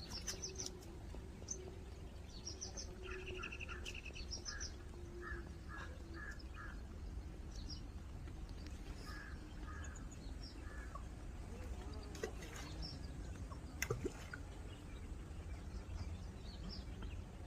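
Several wild birds calling at a lakeside: strings of short repeated notes, a quick trill and high chirps, over a steady low rumble, with a sharp click near the end.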